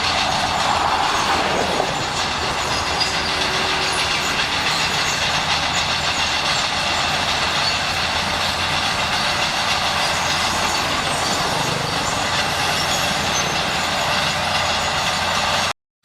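Shantui SD16 crawler bulldozer running under load, its diesel engine droning and its steel tracks clattering. The sound cuts out briefly near the end.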